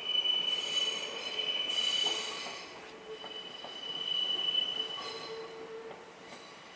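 Steel train wheels squealing against the rails: a high, steady whistling whine that swells twice and then fades as the train moves on.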